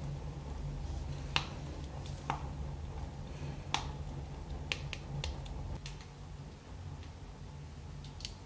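Wood fire burning in a wood stove, crackling with sharp irregular pops over a steady low rumble.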